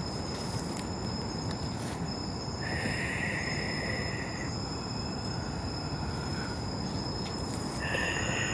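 Outdoor night ambience: insects chirring in two buzzing spells, one about three seconds in and another near the end, over a steady low rumble and a thin continuous high whine.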